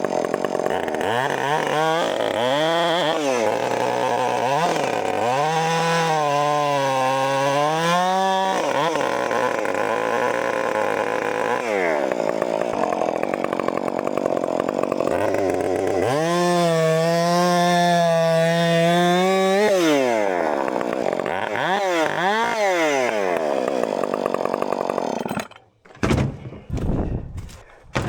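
Chainsaw engine revved up and down repeatedly and held at high speed for a few seconds at a time, then cut off near the end; a few short knocks follow.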